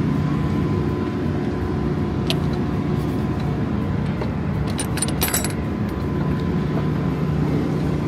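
Semi truck's diesel engine idling steadily, with a few metallic clinks and rattles from the trailer's swing-door latch hardware about two seconds in and again around five seconds in.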